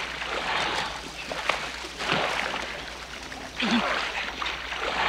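Shallow lake water splashing and sloshing as a man wades out through mud, in three surges about a second and a half apart.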